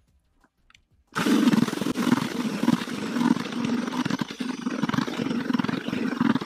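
Cordless drill spinning a paddle mixer through a bucket of wet, bready groundbait, starting about a second in and running steadily at full speed.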